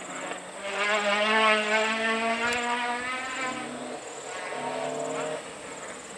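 Rally car engine running hard at speed, a steady note that swells about a second in and shifts lower after about three and a half seconds, then fades near the end.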